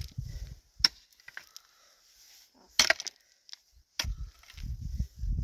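Pickaxe striking hard, stony soil: three sharp blows, about a second in, near three seconds and at four seconds, with a low rumble around the first and last.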